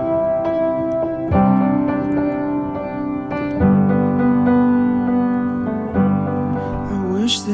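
Background music: a piano playing slow, sustained chords, a new chord struck about every two and a half seconds. A singing voice comes in near the end.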